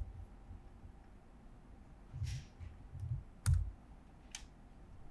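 A few scattered keystrokes on a computer keyboard, dull thumps and sharp clicks, falling between about two and four and a half seconds in.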